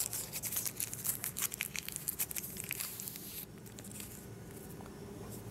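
Thin plastic sleeve crinkling as a small power bank is slid out of it: quick crackles for about three and a half seconds, then stopping.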